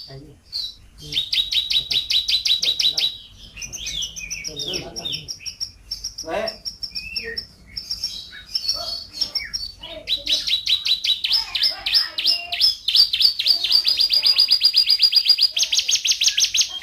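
Domestic canary singing a varied song. It begins with fast rolling trills, turns to a mix of short chirps and slurred whistles in the middle, and goes back to long rapid trills from about ten seconds in, the last one higher-pitched.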